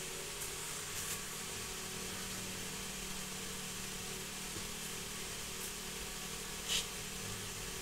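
A steady, motor-like hum, with one short sharp hissing noise near the end.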